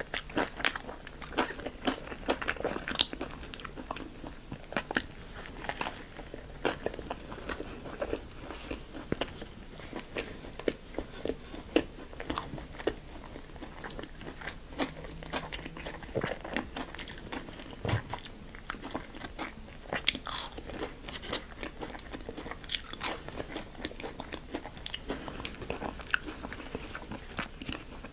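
A person biting and chewing crunchy food close to the microphone, with many sharp, irregular crunches.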